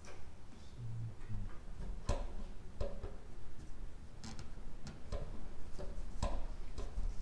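Scattered sharp clicks and knocks, about seven over a few seconds, of a metal engine valve cover being handled and set down onto the cylinder head.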